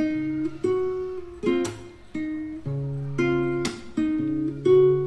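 Background music: an acoustic guitar plucking chords, each note starting sharply and fading.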